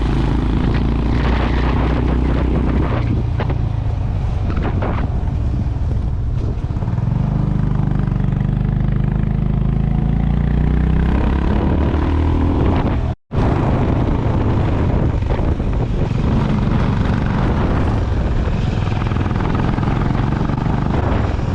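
Honda CB350 RS's single-cylinder engine and exhaust thumping under way, its pitch climbing steadily for a few seconds about halfway through as the bike accelerates. The sound cuts out for an instant a little past the middle, then resumes steady running.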